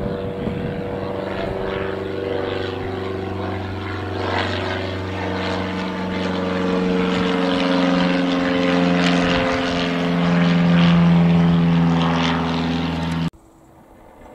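Propeller aircraft engines running, a loud steady drone whose pitch shifts slowly, cut off abruptly near the end.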